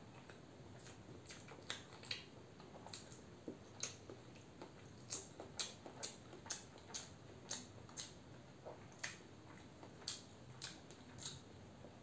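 Hard-boiled egg being peeled by hand: a string of small, sharp shell cracks and ticks, about two a second, as bits of shell are picked off.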